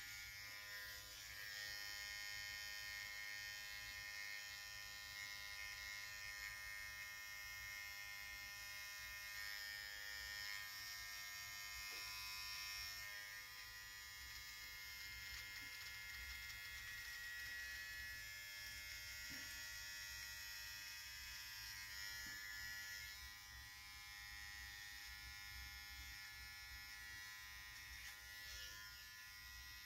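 Cordless electric hair trimmer buzzing steadily while it edges the beard line along a man's cheek.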